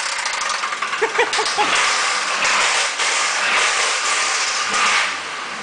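Chevy Impala's 3.4-litre V6 running with a rapid, steady knocking from a worn connecting-rod bearing: rod knock.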